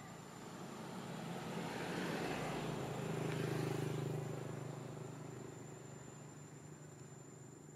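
A motor vehicle passing by, its engine and tyre noise swelling over about three seconds, then fading away.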